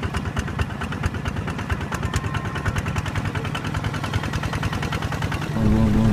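Miniature DIY hand tractor running through a flooded paddy, its motor chugging with a rapid, even beat. About five and a half seconds in, a louder steady droning tone comes in on top.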